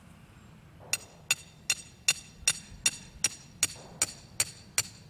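Hammer striking the top of a steel rebar stake, driving it into compacted clay soil to make a hole. Starting about a second in, it gives a steady run of sharp metal-on-metal blows, roughly eleven at about two and a half a second.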